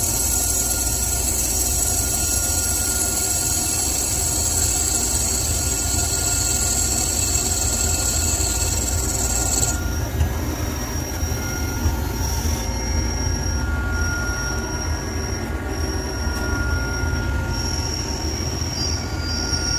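CNC lathe machining a gunmetal (bronze) casting: a steady high-pitched squeal over the machine's low hum, which cuts off suddenly about ten seconds in. After that the hum goes on with short, repeated high tones.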